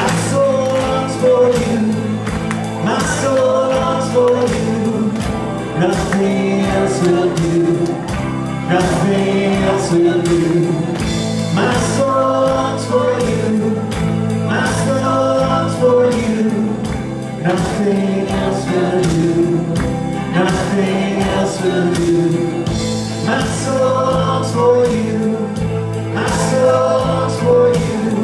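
Live gospel worship song: a band with electric guitar and keyboard plays over a steady beat while singers carry the melody.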